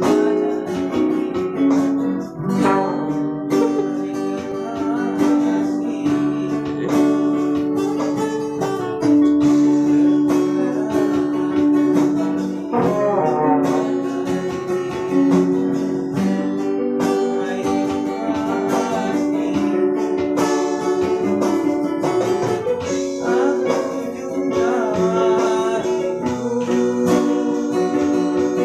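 Dangdut played live by a small band without a sound system: portable electronic keyboards, acoustic guitar and trombone, over a steady beat.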